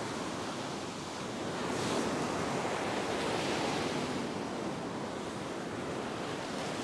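Ocean surf breaking and washing up a sandy beach, swelling about two seconds in as a wave breaks, with wind noise on the microphone.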